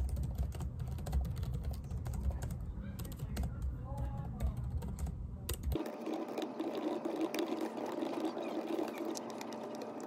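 Rapid clicking of typing on a computer keyboard, with faint voices in the background. About six seconds in, the background changes abruptly: a low rumble drops out and a steady mid-pitched hum takes its place under the continuing clicks.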